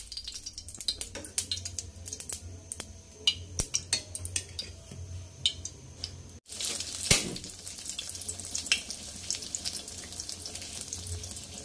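Egg-dipped bread slices shallow-frying in hot oil in a pan, sizzling with many scattered pops and crackles. The sound drops out for a moment a little past halfway.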